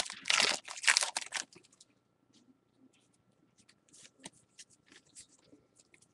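Wrapper of a 2013 Bowman baseball card pack crinkling and tearing open for about the first second and a half, then faint scratches and light ticks of cards being handled.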